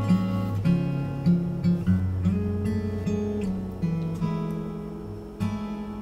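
Background music: an acoustic guitar playing a gentle run of plucked notes and chords.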